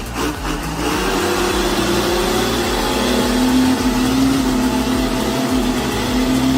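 An engine running at a steady, nearly unchanging pitch, getting louder about a second in.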